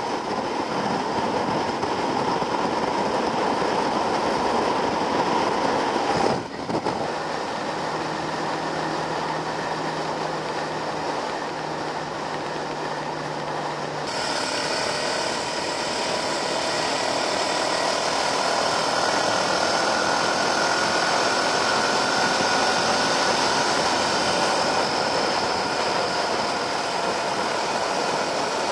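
Wind rushing over a camera mounted on a moving motorcycle, with the bike's engine running steadily underneath. The sound breaks off abruptly about six seconds in and changes character again about halfway through, as the mounted camera views switch.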